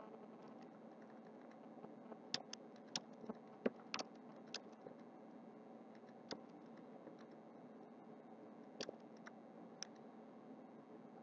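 Scattered keystrokes on a laptop keyboard over faint room tone: a cluster of clicks a couple of seconds in, then a few more later on.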